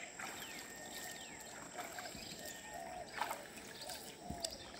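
Gentle river water sloshing and dripping as a man wades and hauls a wet gill net out of the water, with a few soft clicks.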